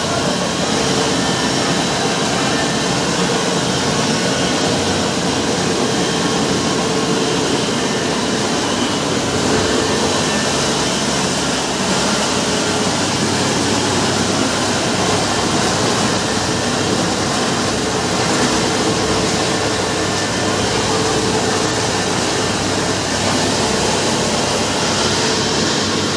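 6N70 mini rice mill machine with grinder running steadily, giving a loud, constant machine whirr that does not change.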